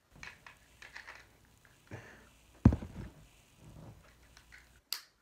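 Scattered clicks, knocks and rustling from Beyblade launcher parts being handled and pulled apart, with one sharp knock about two and a half seconds in.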